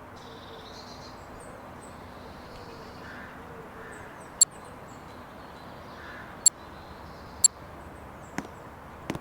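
Outdoor ambience: a steady background hiss with birds calling faintly now and then, broken by three sharp, loud clicks about four and a half, six and a half and seven and a half seconds in.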